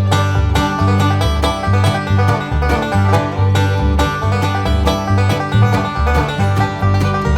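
Upbeat bluegrass-style background music with a plucked banjo over a steady bass line.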